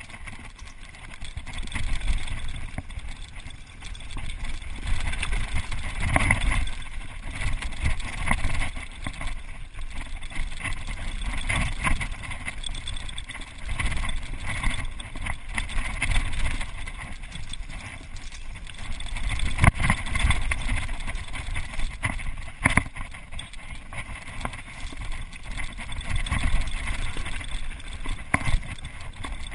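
Mountain bike descending a dirt trail at speed: wind buffeting the microphone over a rumble of tyres on dirt, with frequent knocks and rattles as the bike hits bumps.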